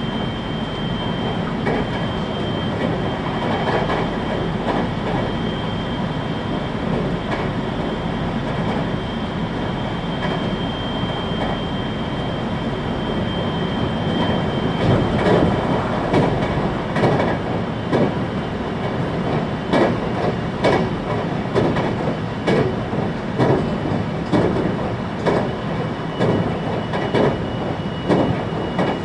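Cabin running noise of a 521-series electric multiple unit travelling along the line: a steady rumble with a thin high whine. About halfway through, regular clickety-clack from the wheels crossing rail joints sets in, roughly one knock a second.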